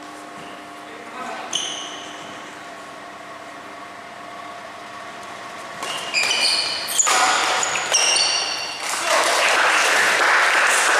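Badminton doubles play on an indoor court: sharp racket hits on the shuttlecock and short high squeaks of shoes on the court floor, busiest from about halfway through. Near the end a crowd breaks into loud shouting and cheering.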